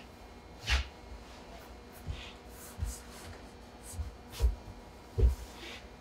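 Soft irregular thumps and knocks on a wooden counter as hands work ropes of gnocchi dough and a knife is set to them, about six in all; the loudest come about three-quarters of a second in and near the end.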